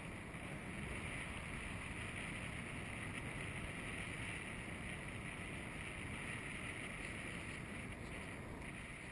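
Steady wind rushing over the microphone of a camera in flight, an even hiss with no engine tone.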